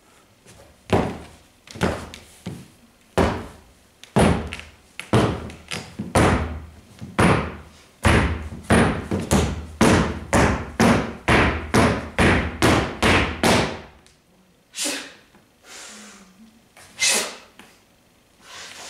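A series of loud thumps in a reverberant room, irregular at first, then coming about twice a second from around eight seconds to fourteen seconds, then a few fainter ones near the end.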